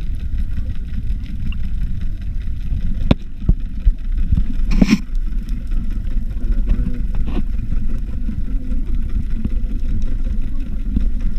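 Muffled low rumble of moving water heard through an underwater camera, with scattered faint clicks and one short burst of noise just before the middle.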